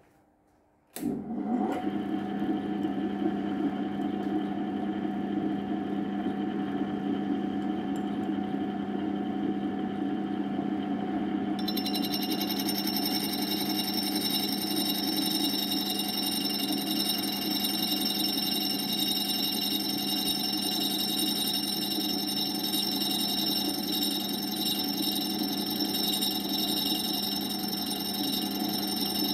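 Lathe motor driving a cup grinding wheel on a homemade tool and cutter grinder attachment: it starts up suddenly about a second in, with a brief rising whine, then runs at a steady hum. Partway through, a high-pitched steady whine joins in and carries on.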